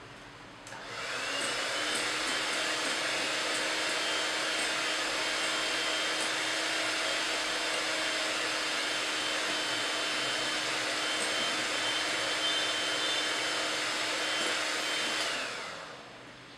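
Electric hand mixer running, its beaters whisking egg whites in a glass bowl toward stiff, glossy peaks. The motor's whine rises as it spins up about a second in, holds steady, and falls away as it is switched off near the end.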